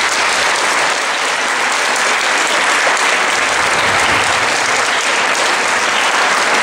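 Steady applause from a crowd: the seated audience and a row of children clapping together.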